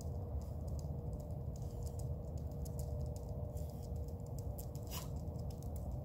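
Steady low engine-like roar from a metal-casting plant's equipment, with a steady whining tone held over it, which the uploader puts down to failing equipment. Scattered faint clicks run over the top, and a brief falling whistle comes about five seconds in.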